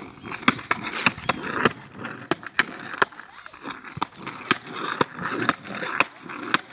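Skateboard rolling, its wheels rumbling on the ground, with a run of sharp clacks about two a second.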